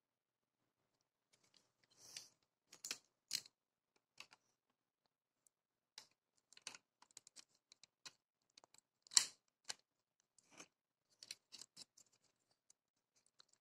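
Lego plastic pieces clicking and knocking in irregular sharp clicks, singly and in small clusters, the loudest about nine seconds in.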